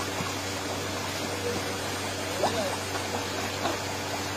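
Steady rush of running water from an artificial waterfall feeding a koi pond, with a low steady hum beneath.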